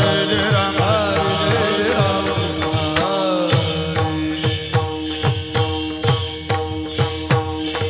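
Varkari bhajan music: a sung melodic line over a steady held drone, with regular pakhawaj drum strokes and clashes of small hand cymbals (tal). The singing stops about three and a half seconds in, leaving the pakhawaj beat, cymbals and drone.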